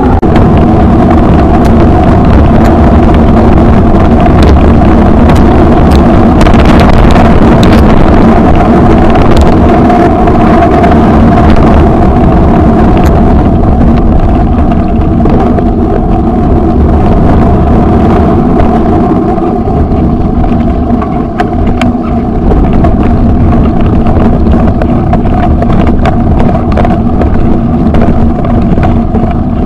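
Off-road vehicle engine running loud and steady while driving over a rough dirt track, with short knocks from the bumpy ground and wind on the microphone.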